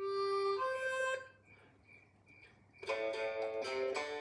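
Short guitar music played through a television's speaker: a couple of held notes, a pause of about a second and a half, then a few chords ringing together near the end.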